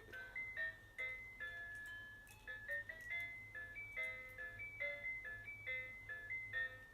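Music: a simple melody of short, bright chiming notes, a few a second, stepping up and down.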